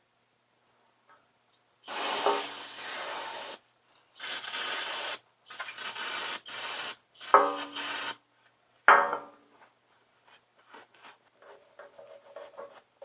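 Cleaning spray hissing in four long bursts of one to two seconds each and a short fifth one, as a transmission part is sprayed clean. Faint clicks and rubbing of handling follow near the end.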